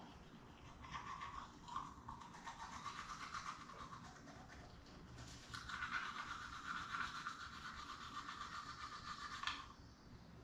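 Toothbrush scrubbing back and forth across teeth in quick, even strokes: two spells of brushing, the second louder, ending abruptly near the end.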